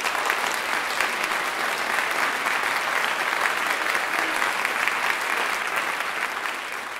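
Audience applauding steadily, a dense patter of many hands clapping, easing slightly near the end.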